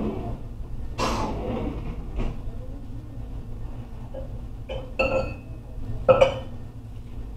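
Kitchenware being handled at the kitchen sink: a series of separate knocks and clatters, one with a short metallic ring about five seconds in, the loudest about six seconds in. A steady low hum runs underneath.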